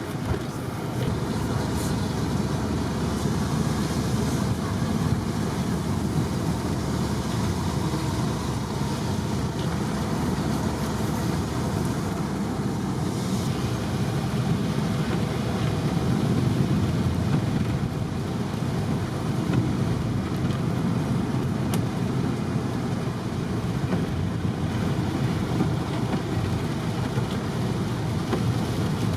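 Steady engine and road noise inside a bus driving along a rough mountain road.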